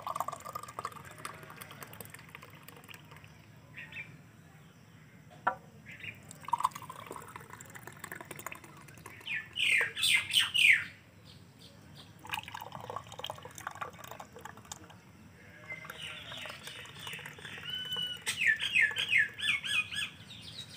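Thick mango milkshake poured from an aluminium pot into glasses, a soft pouring sound. Birds chirp loudest about halfway through and again near the end.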